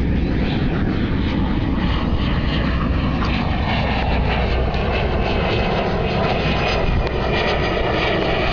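An aircraft flying over, its engine drone sliding slowly down in pitch as it passes, over steady wind rumble on the microphone.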